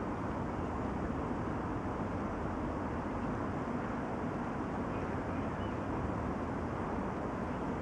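Steady outdoor background rumble, even throughout, with no distinct calls or knocks.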